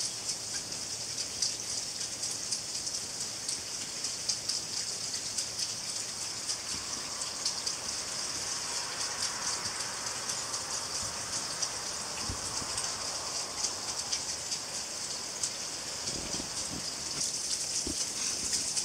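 Steady rain falling, a dense patter of fine drops.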